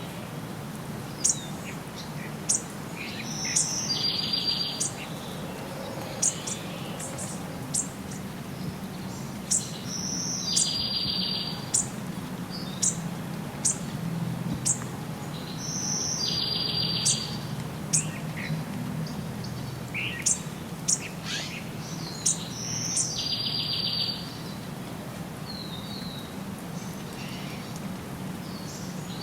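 Birds chirping and singing, with many short high chirps and one song phrase that comes back about every six to seven seconds, over a steady low rumble.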